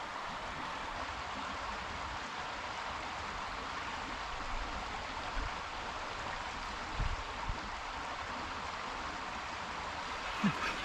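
Creek water running steadily, an even rushing hiss, with a couple of soft low bumps about two-thirds of the way through.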